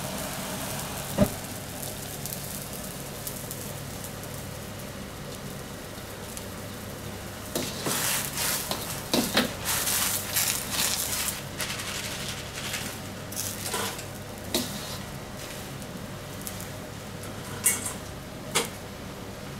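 Wok of water at a rolling boil over a gas burner, hissing and bubbling steadily as swimming-crab pieces blanch. A single sharp metal knock comes about a second in; splashing follows in the middle as the pieces are scooped out with a wire-mesh skimmer, with a few more clanks near the end.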